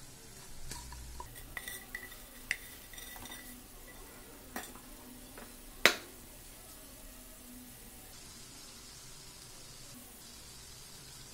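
Metal pans and a utensil handled while fried paneer pieces are tipped from a nonstick frying pan into a pan of thick masala gravy: a run of small clinks and scrapes, then a sharp knock a little before the six-second mark, the loudest sound here.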